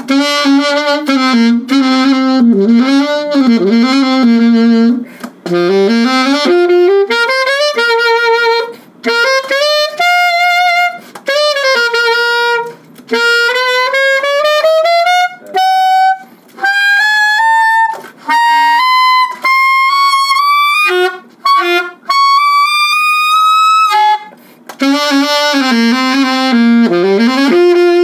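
Selmer Reference 54 alto saxophone with a Dukoff D6 metal mouthpiece played solo: melodic phrases with short breaks for breath between them, climbing into the high register in the middle and dropping back low near the end.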